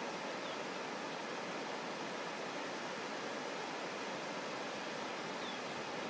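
Shallow river running steadily, a constant rush of flowing water.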